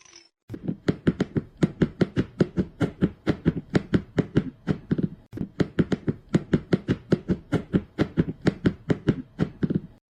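Rapid, evenly paced knocking or tapping, about five sharp strokes a second, that keeps on steadily for several seconds.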